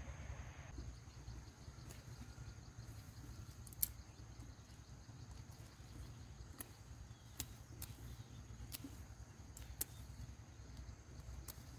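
Faint outdoor ambience: a steady high insect drone over a low rumble, with a handful of sharp clicks or snaps scattered through it.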